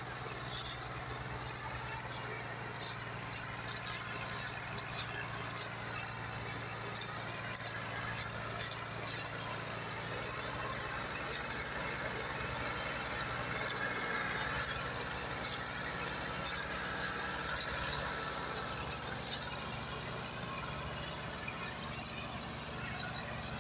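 New Holland tractor's diesel engine running steadily under heavy load, pulling a trolley piled with sugarcane, with scattered sharp crackles over the engine note.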